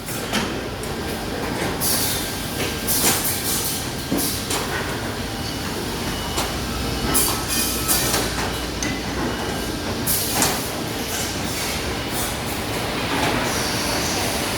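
Loud machinery running, a continuous rumbling clatter broken by irregular bursts of hiss.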